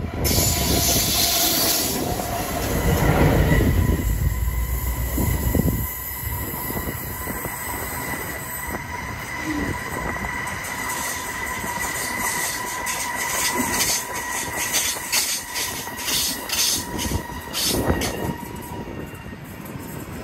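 Two diesel locomotives rumble past at close range for the first six seconds, then their hauled passenger carriages roll by with a steady high-pitched wheel squeal. Between about 14 and 18 seconds a run of sharp clicks comes from the wheels crossing rail joints, and the train eases off near the end.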